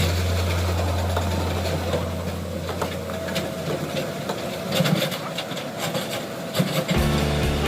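Excavator with a hydraulic rock breaker at work: steady diesel engine running, with scattered knocks of the breaker against rock.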